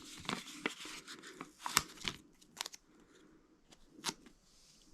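Sticker sheet rustling and stickers being peeled off and pressed onto the spinning target's paddles, a run of crinkles and sharp clicks; the loudest click comes just under two seconds in, another about four seconds in.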